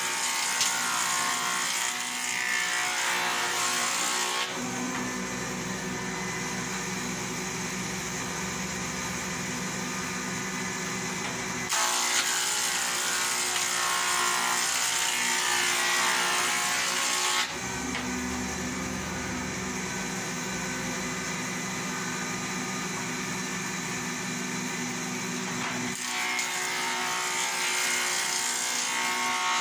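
Electric thickness planer running steadily as a wooden board is fed through to plane it down to thickness. It turns louder and brighter in three stretches (at the start, about twelve seconds in and again near the end) and settles into a lower hum in between.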